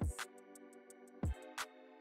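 Background music: sustained chord tones with a few sharp beats.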